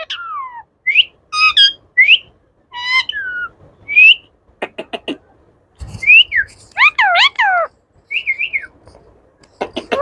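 Indian ringneck parakeet calling in a string of short whistled notes, each rising or falling in pitch, with a few sharp clicks about halfway through.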